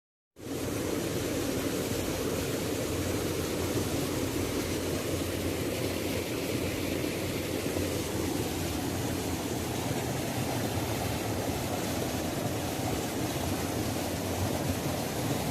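Waterfall rushing steadily, starting abruptly after a brief gap about a third of a second in.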